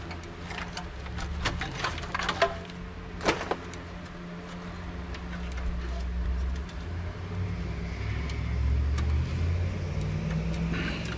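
Clicks and knocks of power-supply cables and plastic connectors being worked loose inside a steel computer case, several sharp ones in the first few seconds. A low steady rumble builds through the second half.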